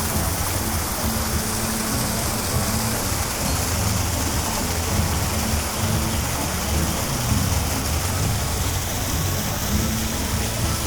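Steady rushing noise with faint background music.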